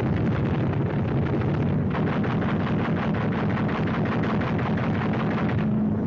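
Rapid gunfire from an aerial battle over the steady drone of aircraft piston engines. The firing thickens about two seconds in and stops just before the end, leaving the engine drone.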